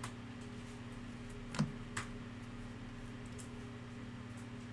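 Trading cards being slid and flipped by hand: a few faint clicks, two of them close together about a second and a half in, over a steady low electrical hum.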